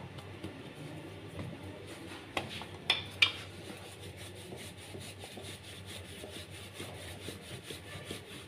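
Wooden rolling pin rolling out pizza dough on a floured stone counter: a soft, continuous rubbing, with a few light knocks about two to three seconds in.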